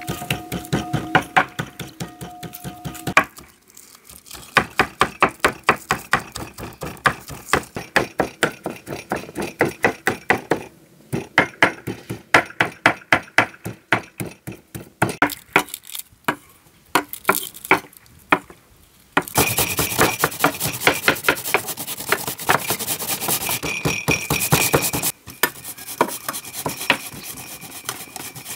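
A knife chopping fast and evenly on a wooden board, about five or six strokes a second, with short pauses. About two-thirds through, a denser continuous scraping noise takes over for several seconds before the chopping resumes.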